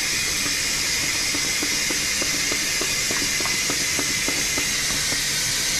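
Steady background hiss, with soft quick taps a few times a second as a spice shaker of dried oregano is shaken over a raw chicken.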